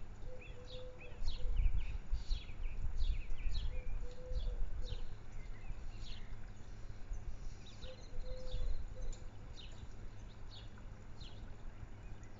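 Garden birdsong: many short, high, falling chirps, with a short low call repeating about every four seconds and a low rumble underneath.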